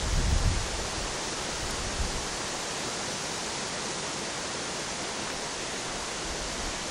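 Steady rushing of a rocky stream and falls, an even unbroken hiss of water, with a brief low rumble at the very start.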